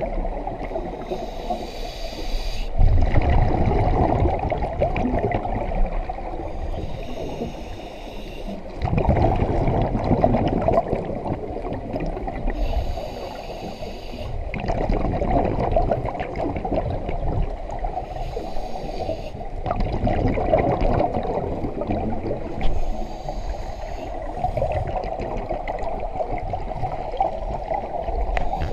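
Scuba diver breathing through a regulator underwater: a hiss on each inhale, then a rumbling gush of exhaled bubbles. About five breaths, one every five to six seconds.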